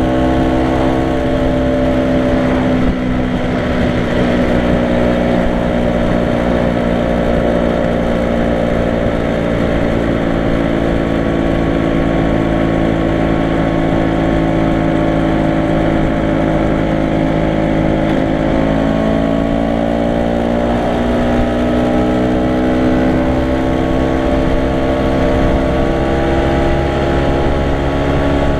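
Vintage Vespa scooter's single-cylinder two-stroke engine running at cruising speed, heard from on board, with a steady rush of wind underneath. The engine note dips briefly about three seconds in, sags slowly through the middle and climbs again near the end.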